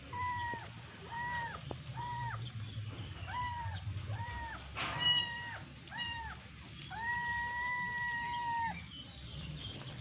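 Kitten meowing over and over in high, short calls, about seven of them, then one long drawn-out meow near the end. A brief sharp tap sounds about halfway through.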